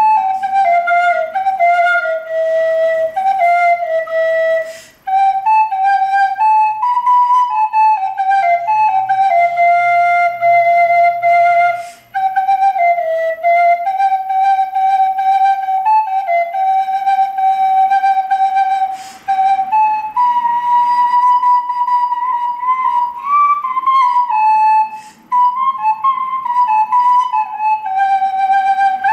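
Solo soprano recorder playing a melody of long held notes. It stops briefly for a breath about every six or seven seconds.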